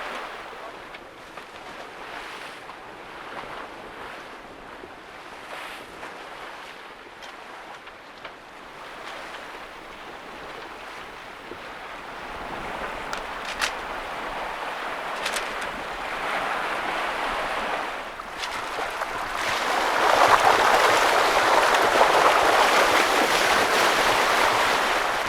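Water rushing and splashing along a small sailing yacht's hull as she runs before a strong wind, with wind buffeting the microphone. The rush swells markedly about three-quarters of the way through.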